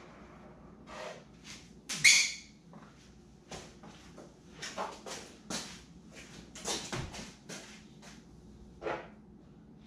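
Can of expanding spray foam dispensing through its straw nozzle in a series of short hissing, sputtering spurts, irregularly spaced, the loudest about two seconds in.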